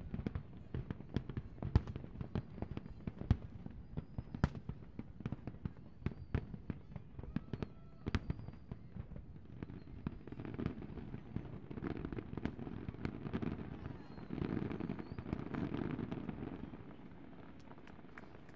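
Aerial fireworks going off: many sharp, separate bangs for about the first ten seconds, then a denser, more continuous rumble of reports that fades out near the end.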